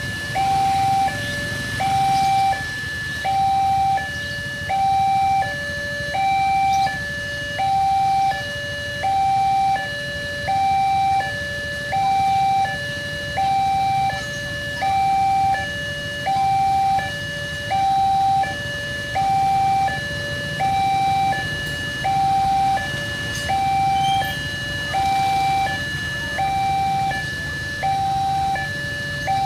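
Indonesian railway level-crossing alarm sounding: an electronic two-tone warning that alternates steadily between a higher and a lower tone, each held for well under a second, signalling that the crossing is closed for an approaching train. Under it is a low rumble of idling traffic.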